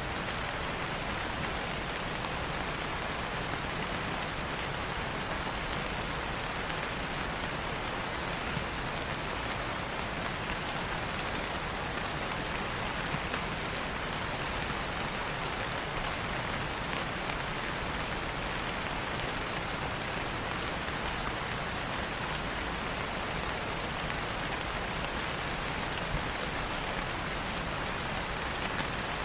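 Steady rain falling, an even hiss with a few slightly louder drops here and there.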